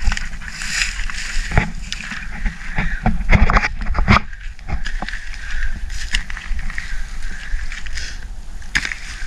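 Long-handled hoe chopping into and scraping through loose, leafy soil, irregular knocks and scrapes, heaviest in a quick run of strokes a few seconds in.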